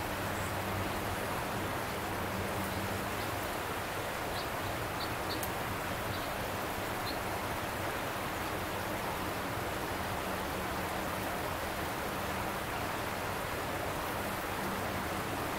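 Steady rushing of a flowing stream, with a faint low hum underneath and a few small ticks about five seconds in.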